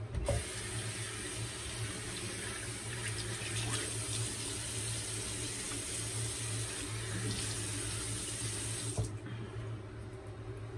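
Bathroom sink faucet turned on and running steadily, then shut off abruptly about nine seconds in, as hands are wetted to add water to the shaving lather.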